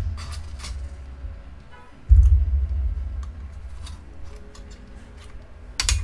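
Small metallic clicks and scrapes of hand tools working on an Xbox Series X's internal metal parts. A heavy low thump comes about two seconds in, and a sharp click comes near the end.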